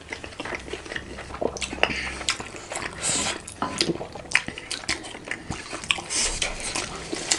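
Close-miked eating sounds from juicy chicken momo dumplings: wet chewing, lip smacks and slurps in a quick run of short clicks and squelches.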